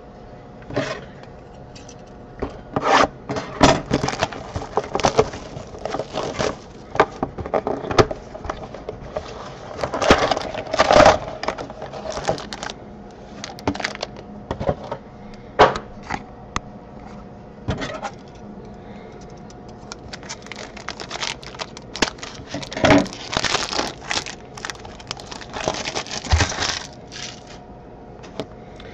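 Crinkling and rustling of a foil trading-card pack being handled and torn open, with the scraping and shuffling of cardboard cards. These come in irregular handling noises with short quiet gaps.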